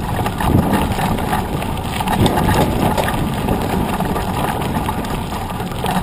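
Mountain bike running over a rough gravel and dirt track, heard from a camera mounted beside the knobby front tyre: constant rumble and rattle from the tyre and frame, with wind buffeting the microphone.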